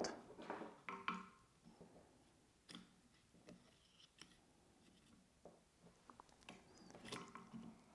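Near silence with a few faint, scattered clicks and taps from hands handling a small motor and its rubber timing belt.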